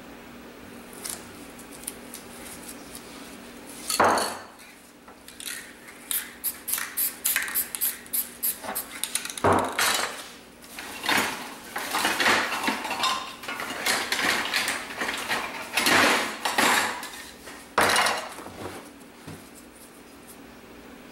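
Aerosol spray paint can being shaken, its mixing ball rattling in quick runs of clicks, with several short bursts of spray hiss in between.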